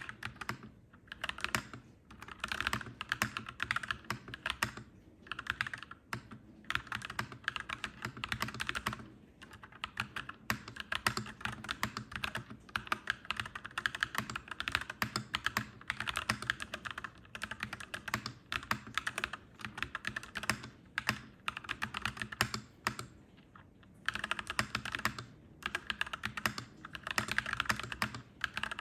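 Clacky mechanical keyboard being typed on, fast runs of keystrokes broken by short pauses.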